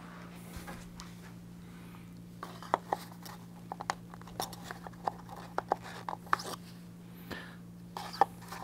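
Scattered light clicks and taps as a plastic oil filter cap and its paper filter cartridge are handled in gloved hands, over a steady low hum.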